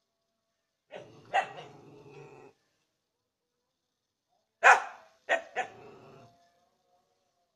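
A dog barking in two bursts: a couple of barks about a second in, then three sharp, louder barks about five seconds in.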